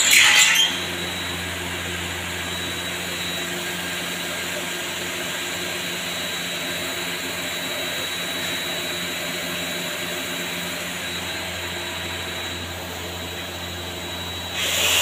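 Steady hum of machinery running in an HDPE pipe plant, several even tones over a constant mechanical noise. A brief loud rush of noise sounds at the very start, and a louder steady hiss comes in just before the end.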